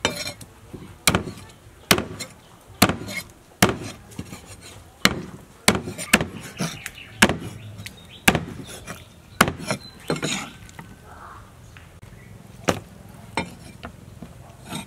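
Cleaver chopping through raw chicken on a wooden chopping board: sharp chops about once a second, thinning to a few scattered knocks after about ten seconds.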